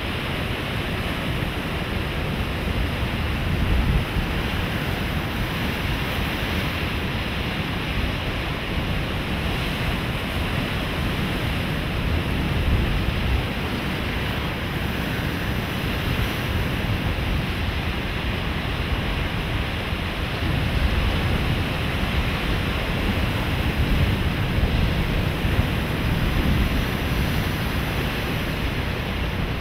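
Sea surf rushing and breaking in a steady wash, with low wind rumble on the microphone; the level swells slightly every several seconds as waves come in.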